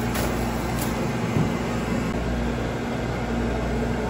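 Steady low mechanical hum with a hiss over it, with a couple of faint clicks in the first second and a soft low thump about a second and a half in.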